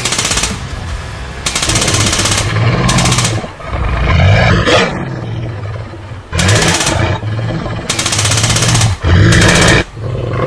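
Several bursts of automatic gunfire, each a rapid string of shots lasting about half a second to a second, with a large beast's roar about four to five seconds in.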